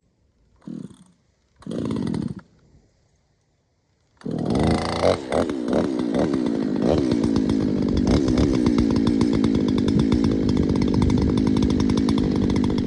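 Two-stroke chainsaw with a ported muffler being pull-started: two short sputters in the first couple of seconds, then about four seconds in it catches, revs briefly and keeps running steadily.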